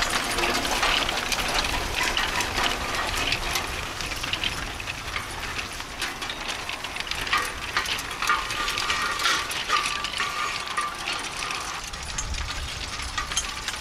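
Steel-wheeled horse-drawn riding cultivator pulled by a team of Percheron draft horses, its iron frame and harness chains clanking and rattling in a continuous run of metallic clicks and knocks as it works through the corn rows.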